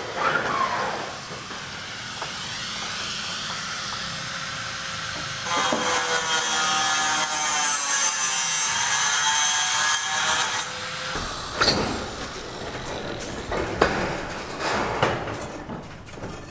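Power tool running with a wavering whine, loudest in the middle stretch, followed by a few sharp knocks.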